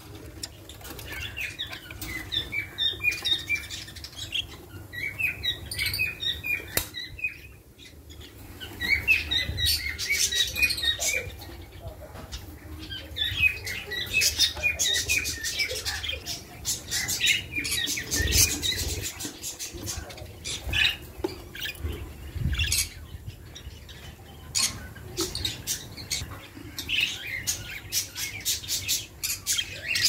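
Caged budgerigars chattering in quick runs of short chirps that come and go, mixed with wing flapping and sharp scratchy clicks.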